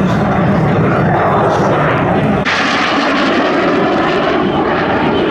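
Jet noise from Aermacchi MB-339 PAN jet trainers flying overhead, their Rolls-Royce Viper turbojets running steadily. About halfway through the sound switches suddenly from a deeper rumble to a higher, hissier jet noise.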